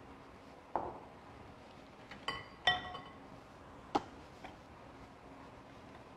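Glass mixing bowls clinking under metal kitchen tongs as pasta is lifted from one bowl into the other: about five separate clinks, the loudest a little under three seconds in, ringing briefly.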